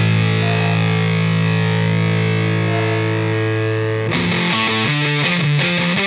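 Background instrumental music with a distorted electric guitar. A held chord rings for about four seconds, then breaks into a quick run of separate notes.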